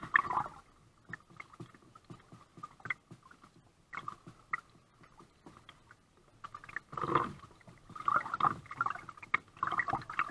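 Kayak paddle strokes: the blades dipping and splashing in the water, with irregular small knocks and drips, and a louder splash about seven seconds in.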